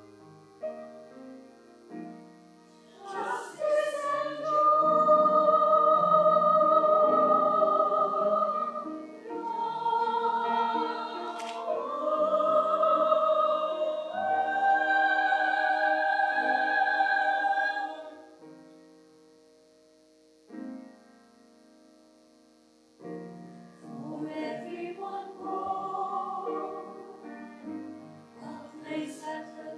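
Classical-style solo singing with piano accompaniment: long held notes with vibrato. The music stops for a few seconds past the middle, then resumes more softly.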